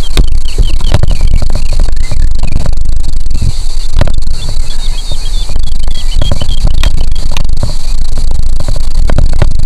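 Wind buffeting the microphone with a heavy low rumble. Over it, grasshoppers keep up a steady high buzz, and a bird gives bursts of rapid short falling chirps. A few sharp clicks come through as well.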